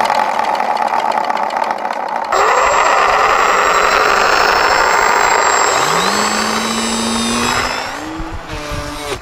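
Small brushless electric motors on a Magnus-effect RC plane running loudly: the geared motor driving the spinning bucket rotors. About six seconds in a rising whine is heard as the motors spool up. It steadies, then climbs again near the end as the plane takes to the air.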